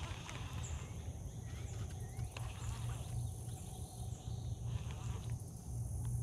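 Repeated short, high chirps from a calling animal, with a few faint gliding calls, over a steady low hum.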